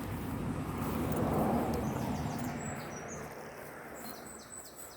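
A vehicle passing along the road: a smooth rush of noise that swells about a second in and then fades away. Small birds chirp near the end.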